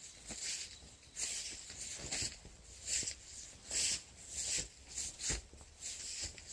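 Repeated short rustling bursts, about one or two a second at uneven spacing, with a few faint low knocks.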